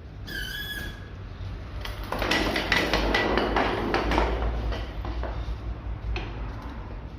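Metal suspension parts and hand tools being handled: a brief squeak near the start, then a few seconds of scraping and clattering with rapid clicks.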